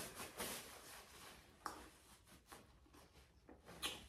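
Very quiet eating sounds: a few faint clicks and soft mouth noises from chewing and handling food, the loudest near the end.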